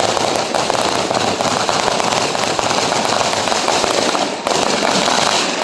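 A long string of firecrackers going off in a rapid, continuous rattle of bangs as it burns along the ground. It breaks off briefly near the end, then picks up again.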